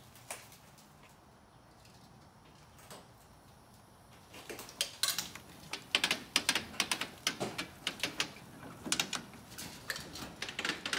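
Quiet for the first few seconds, then rapid, irregular clicking and clattering, several clicks a second, as a Tesla Model 3 rolls backward down an enclosed car-hauler trailer's metal ramp.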